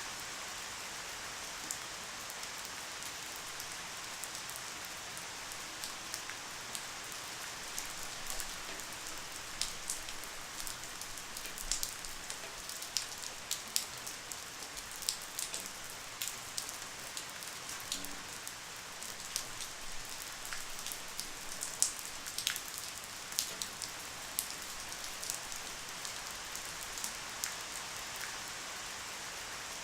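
Light rain falling steadily, an even hiss with scattered sharper ticks of individual drops striking a surface, the ticks coming thicker through the middle.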